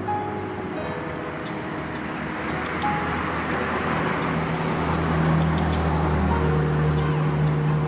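A road vehicle passing along the street, its noise swelling through the middle with a low engine hum, over background music.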